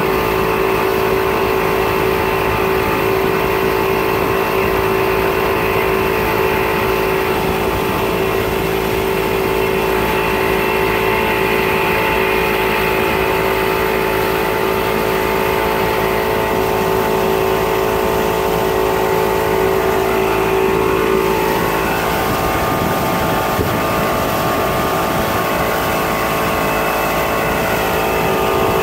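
Outboard motor running steadily at speed while towing a rider, its hum holding an even pitch with a brief shift in pitch about three-quarters of the way in, over a constant rush of water and wind.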